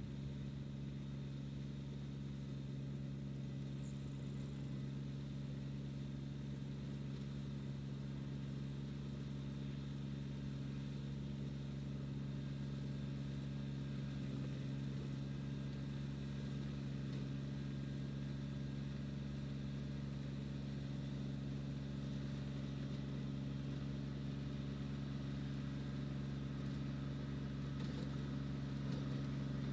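Kubota BX2360 subcompact tractor's three-cylinder diesel engine running at a steady speed, a constant hum that grows slightly louder toward the end as the tractor comes closer.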